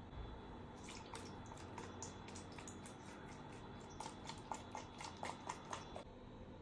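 Milk glugging and splashing as it is poured from a carton into a plastic blender jug: an irregular run of gurgles, loudest near the end, that stops suddenly about six seconds in.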